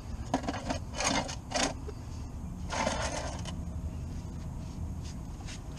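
Hands and tools working on parts under a car's front end: four short scrapes and rustles in the first three and a half seconds, the last one the longest, over a steady low rumble.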